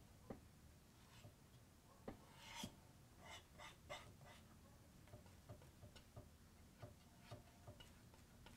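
Near silence with faint, irregular taps and short scrapes of a paintbrush working oil paint.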